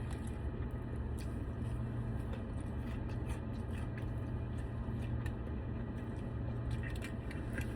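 A person chewing a mouthful of fried chicken tender, with faint soft clicks and squishes over a steady low hum.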